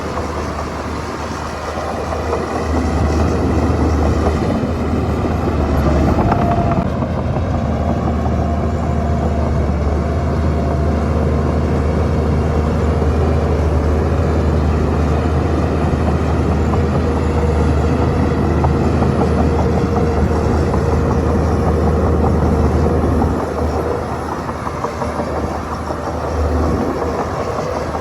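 Shantui crawler bulldozer working, its diesel engine running loud and steady with a deep drone. The engine comes up under load a couple of seconds in and eases off near the end.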